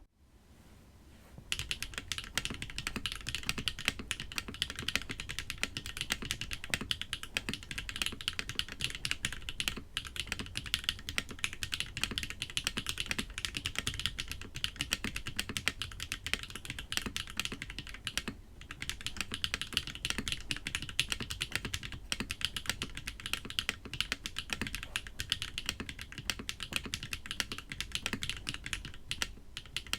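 Continuous fast typing on a foamless GDK Studio KV1-65 custom mechanical keyboard with Hyacinth V2U switches on an aluminium plate, starting about a second and a half in, with a brief pause a little past halfway.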